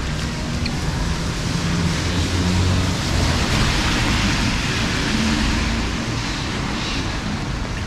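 Steady hiss of rain on a wet street while a minibus drives past on the wet road. Its engine hum and tyre swish swell to their loudest about three to five seconds in, then fade as it moves away.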